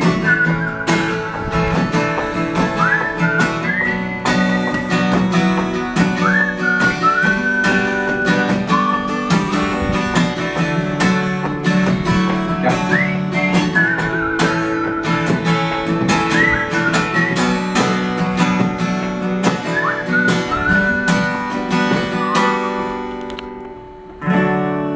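Steel-string acoustic guitar strummed through a song's wordless outro, with a high whistled melody in short phrases that scoop up in pitch over it. The playing dies down shortly before the end.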